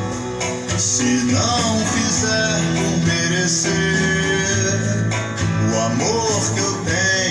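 A guitar-backed song played loud and steady through Magnum 200 W RMS passive PA speakers, driven by an Audio Leader Slim 1000 power amplifier.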